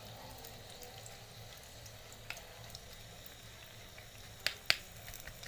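Faint sizzling from a pan of hot oil and carom seeds as tamarind liquid trickles in. A few sharp crackles come through it, the two loudest a little after four seconds in.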